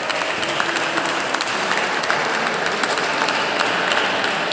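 Spectators applauding with a dense patter of hand claps, which starts just before and lasts the whole stretch.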